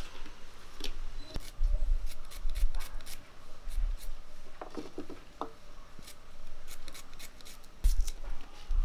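Knife slicing shallots held in the hand, cutting against the thumb with no board: a quick run of crisp snips through the crunchy bulbs, with a few dull low knocks among them.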